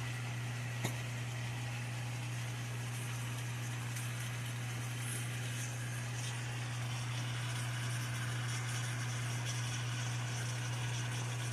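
Steady sizzling of chicken and noodles frying in a pan for pad thai, over a constant low hum. One light click about a second in.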